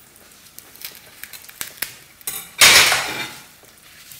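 Knife and plate being handled, with scattered light clicks and taps, then one loud scraping rustle lasting under a second about two-thirds of the way in.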